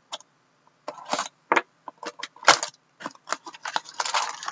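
Plastic shrink wrap on a trading-card box being slit with a hobby knife and then torn and peeled off. Scattered scratches and clicks come first, then a dense crinkling near the end as the wrap is pulled away.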